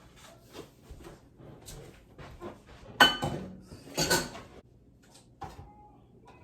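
Tableware being handled in a kitchen: a run of light clicks and knocks, then a sharp ringing clink about three seconds in and another clatter a second later.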